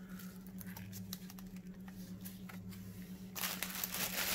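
Faint handling clicks as a gaming headset is moved, then plastic wrap crinkling loudly from about three seconds in. A steady low hum runs underneath.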